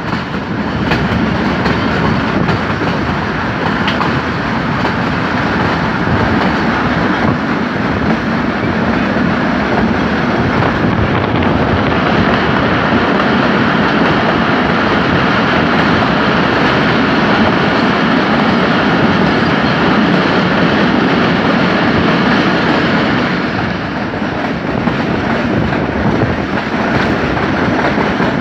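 Passenger coaches of the Jaffer Express running at speed, a steady rumble of wheels on the rails heard close alongside the coach. For a stretch in the middle, while the train passes through a tunnel, the noise grows louder and brighter.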